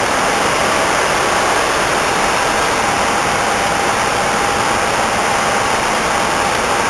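Steady rushing cockpit noise of an Airbus A319 in flight, with a faint steady tone running through it.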